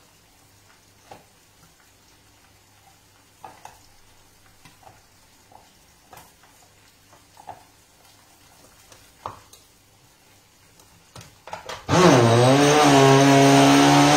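Small scattered clicks and knocks of kitchen utensils, then about twelve seconds in an electric blender's motor starts, its whine rising as it spins up, and runs steadily.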